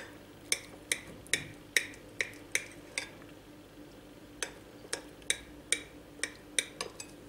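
Kitchen knife cutting through a slab of homemade tofu and clicking against the ceramic plate beneath at each stroke: two runs of quick, sharp clicks, about two to three a second, with a short pause between them.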